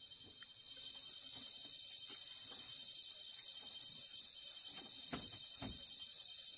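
Steady high-pitched insect chorus, with a higher layer coming in louder just under a second in, and two soft knocks about five seconds in.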